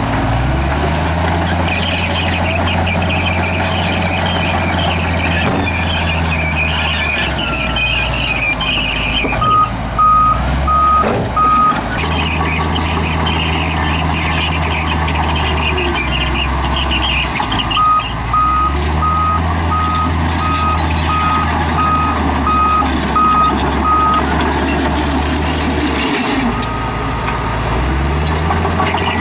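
Heavy diesel engine of a Komatsu D58E bulldozer working hard, its speed rising and falling in long cycles as it loads up and eases off, with a high mechanical hiss over it. A reversing alarm beeps twice in runs: a few beeps about ten seconds in, and a longer run of about ten beeps starting around eighteen seconds.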